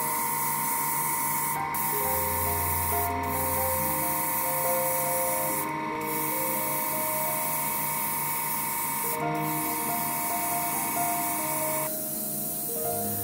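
Airbrush spraying paint with a steady hiss of air, cut off briefly about four times as the trigger is let go. A steady whine runs alongside and cuts off near the end.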